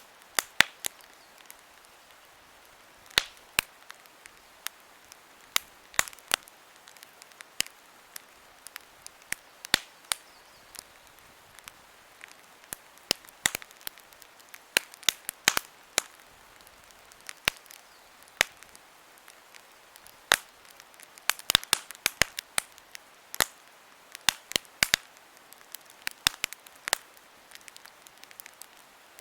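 Wood campfire crackling: irregular sharp pops and snaps, several a second at times, over a faint steady hiss.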